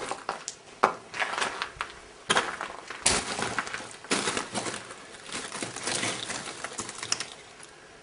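Footsteps crunching over rubble and broken debris, with irregular sharp cracks and scraping crunches.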